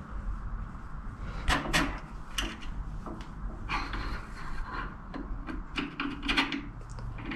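Steel parts clinking and knocking as a lever arm is handled and fitted onto a steel shaft by hand: a string of sharp clicks with a short scraping stretch about four seconds in, over a low steady hum.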